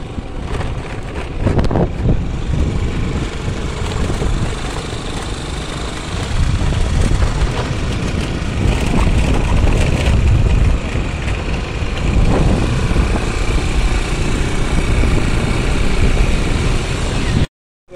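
A vehicle on the move, its engine noise mixed with wind rumbling on the microphone. The sound drops out for a moment just before the end.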